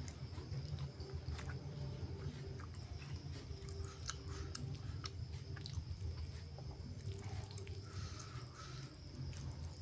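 Close-up chewing of spicy chicken liver and gizzard: scattered wet mouth clicks and smacks over a steady low hum.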